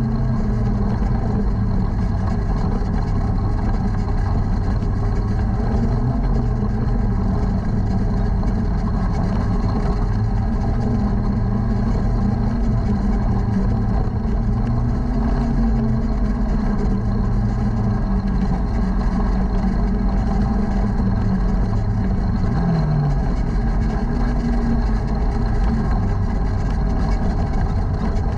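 Junior sprint car engine heard from inside the car, running steadily at low speed as the car rolls slowly around the dirt track. The pitch wavers a little, with one short drop about three-quarters of the way through.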